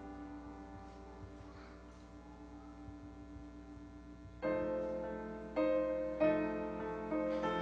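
Piano playing slow, sustained chords. A held chord fades away for the first four seconds or so, then fresh chords are struck about a second apart.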